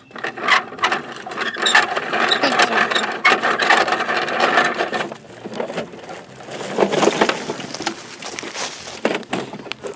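Plastic gear mechanism of a toy garbage truck clicking and rattling rapidly, like a ratchet, for about five seconds, then more scattered clattering.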